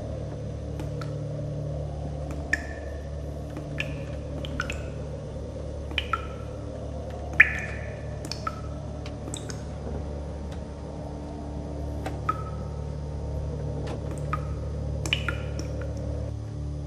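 About a dozen soft, irregular clicks, each with a brief ringing note, over a steady low hum in a small enclosed room.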